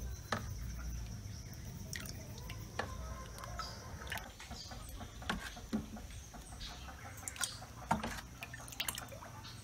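Thick gel-like homemade liquid soap being scooped with a small plastic cup and poured back into a plastic basin: scattered wet plops and drips.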